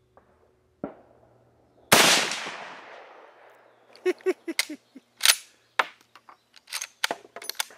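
A single loud shot from a Mosin-Nagant bolt-action rifle in 7.62x54R about two seconds in, its report dying away over a second or so. It is followed by a run of sharp metallic clicks as the bolt is cycled, an action that is smooth for a Mosin.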